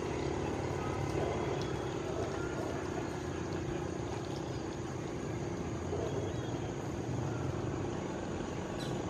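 Steady low drone of a distant motor, with a few faint, short bird chirps over it.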